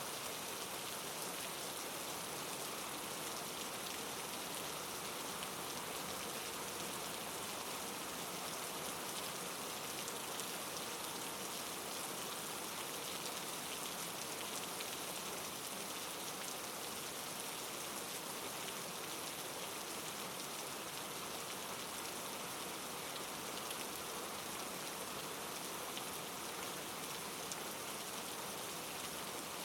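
Steady rain falling, with fine patter of drops on a surface.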